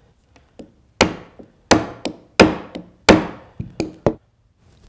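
Nylon-tipped hammer striking the rifle's trigger guard four times, about 0.7 s apart, to tap the action loose from its wooden stock, followed by a few lighter knocks.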